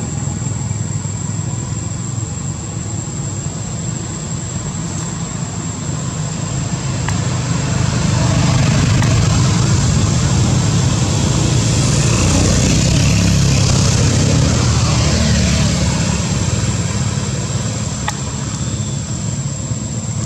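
A motor vehicle engine running steadily, growing louder for several seconds in the middle and then easing off again.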